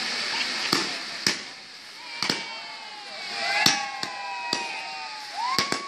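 Category 2/3 consumer fireworks: fountains hissing, fading after about a second, then about eight sharp bangs as shots launch and burst.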